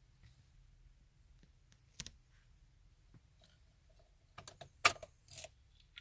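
A few short, sharp clicks and a brief rattle: one click about two seconds in, then a quick cluster, loudest about five seconds in, over a faint low hum.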